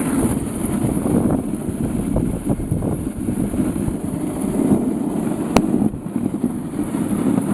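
Steady rumble of a dog sled moving over snow, with one sharp click about five and a half seconds in.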